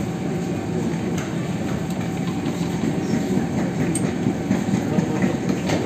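Athens Metro Line 1 train heard from inside the carriage: a steady low rumble with scattered light clicks and clatter.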